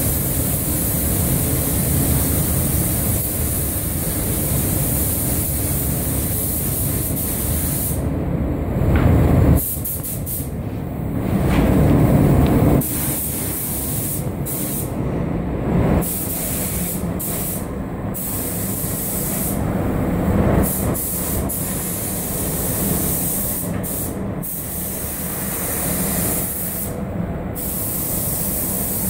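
Compressed-air paint spray gun hissing, the hiss cutting out and coming back about eight times as the trigger is released between passes, over a steady low rush of air.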